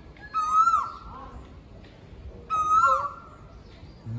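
Asian koel calling twice, two short loud calls about two seconds apart.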